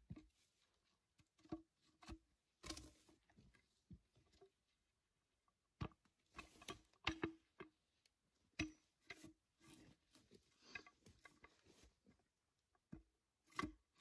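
Faint, irregular knocks, clicks and rustles from a cant hook being worked on a downed tree log: the hook biting and levering against the bark as the log is rolled, with boots shifting on brush and twigs.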